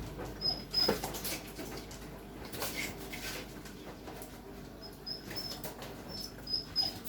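Short high-pitched squeaks from an animal, two about half a second in and a quick run of them near the end, among light scratching and rustling noises.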